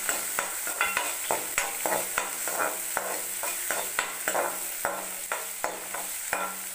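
Spatula stirring and scraping against a metal kadai, in strokes about three a second, while chopped onion, sliced garlic and dried red chillies sizzle in hot oil: the onions being sautéed.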